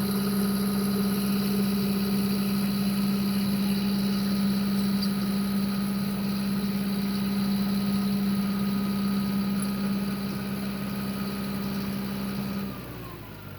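A vehicle engine idling with a steady hum, which stops abruptly about a second before the end.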